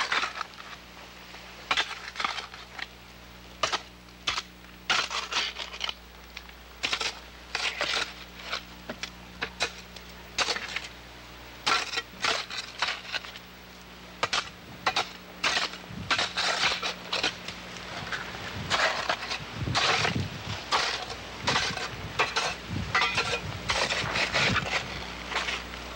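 A shovel digging into earth: repeated irregular scrapes and thuds, sparse at first and coming faster in the second half, over a steady low hum.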